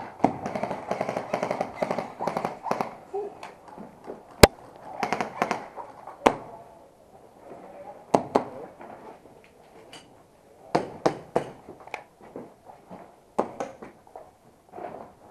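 Airsoft guns firing: rapid runs of clicking shots early on, one sharp loud crack about four and a half seconds in, then scattered short groups of pops and clicks.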